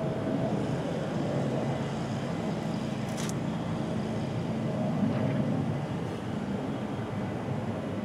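Steady low drone of a distant engine, with one sharp knock about three seconds in.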